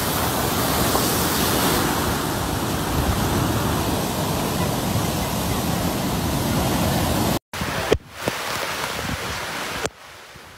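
Heavy storm surf driven by cyclone-force wind crashing onto a beach, with wind buffeting the microphone, a dense steady noise. It cuts out briefly about seven seconds in and gives way to gusting wind, which drops much quieter near the end.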